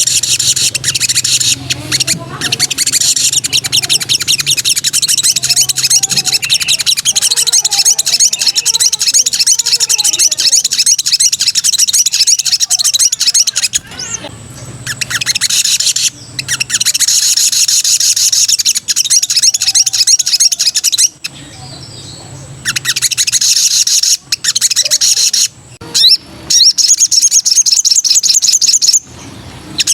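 Sogok ontong (spiderhunter) singing in long, very fast trills of high, thin notes, broken by several short pauses.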